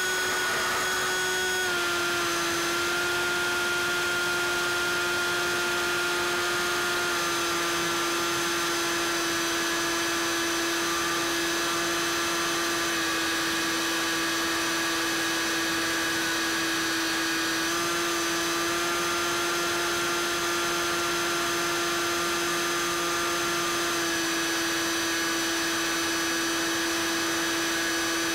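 Bixler 3 foam RC plane's brushless electric motor and propeller running under throttle in flight, a steady high whine. Its pitch steps slightly down and back up a few times as the throttle changes.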